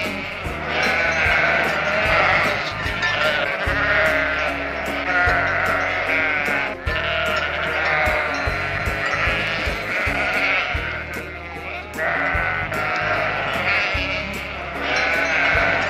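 Sheep bleating again and again in long, wavering calls, over background music with a steady beat.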